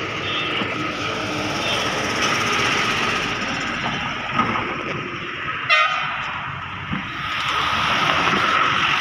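A machine running steadily with a constant high whine over a rushing hiss, typical of car-wash equipment. A short, sharp tone cuts in about halfway through.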